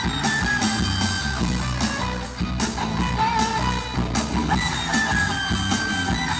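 Live rock band playing: electric guitar over bass and drums, with a held high melodic line that steps down twice.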